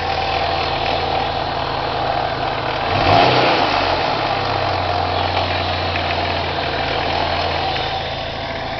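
Supercharged Chevrolet Cavalier Z24 engine idling steadily, with one brief throttle blip about three seconds in that rises and falls back to idle. The engine is making a strange noise that the owner places in the pulley and timing-chain area.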